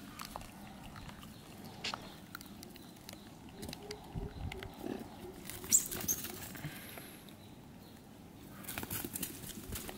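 Macaques making low, wavering vocal sounds, with a short, high-pitched squeak about six seconds in and scattered light clicks and rustles.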